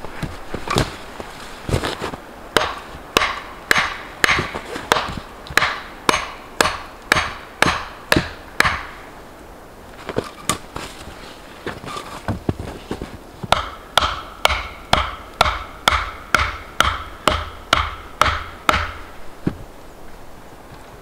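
A hand tool striking a log over and over, about two blows a second, in two runs with a short pause near the middle. The later blows ring with a clear tone.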